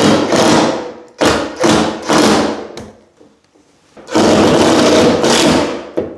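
Power drill-driver driving screws through a towel-rail bracket into the timber behind plasterboard, run in short bursts with a pause, then a longer run near the end.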